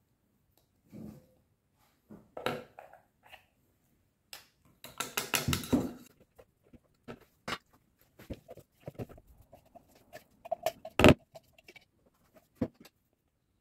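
Silicone spatula scraping crushed frozen strawberries from a chopper bowl into a plastic measuring jug, with clicks and taps against the plastic. A quick flurry of scraping and tapping comes about five seconds in, and a single sharp knock, the loudest sound, comes about eleven seconds in.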